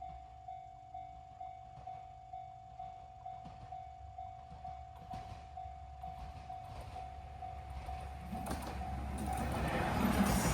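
Japanese level-crossing alarm ringing its electronic bell about twice a second, with a train approaching: its rumble grows louder from about eight seconds in and covers the bell near the end.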